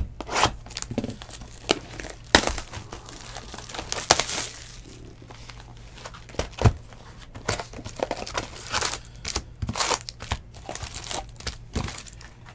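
Plastic shrink wrap crinkling and tearing as it is pulled off a sealed box of trading cards, in many irregular crackles, with foil card packs being handled near the end.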